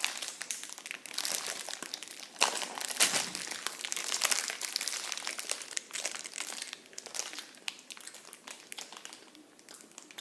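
Plastic packaging around a giant gummy bear crinkling as it is handled, in irregular crackles with a few louder bursts in the first half and quieter towards the end.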